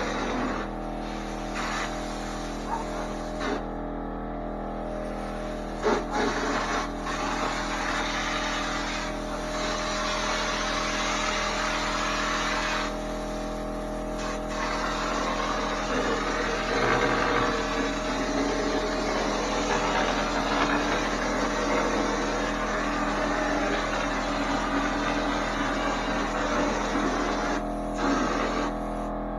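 Drywall texture hopper gun spraying joint compound with compressed air: a steady hiss that cuts out briefly a few times as the trigger is let off, over the steady hum of the running air compressor.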